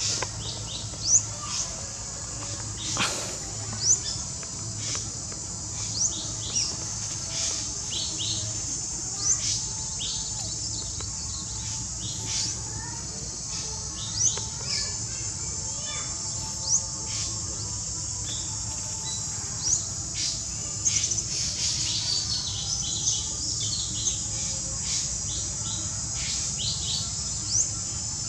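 Outdoor ambience of many short, high bird chirps scattered throughout, over a steady high insect buzz.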